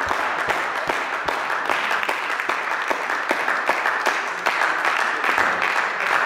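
Applause and clapping in a sports hall, marking the end of a table tennis match.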